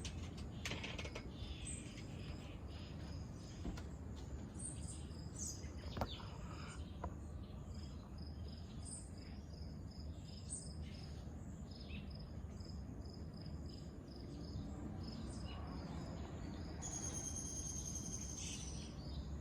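An insect chirping in a regular rhythm of about two chirps a second, with scattered bird calls and a steady low hum. Near the end a higher, steady call runs for about two seconds.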